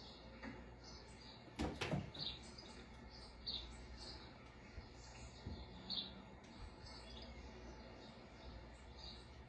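Short, high chirps repeating every half second or so from a cat-entertainment video's soundtrack playing on a television, with a few sharp knocks about two seconds in.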